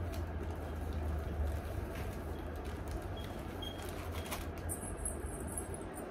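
Light handling sounds of a plastic zip pouch and jewellery: faint rustling and a few small clicks, over a steady low hum.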